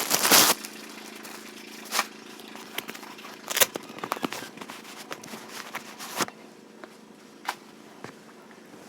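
Plastic packaging crinkling and rustling as it is handled, with a few sharper crackles and a louder rustle at the very start.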